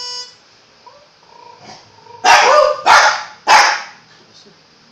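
A held harmonica note stops right at the start. About two seconds in, a Jack Russell terrier gives three loud barks in quick succession, answering the harmonica.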